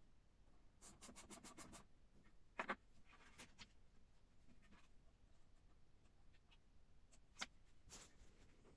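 Faint clicks and light scraping of small parts being handled, with a quick run of about eight ticks about a second in and a few single clicks after.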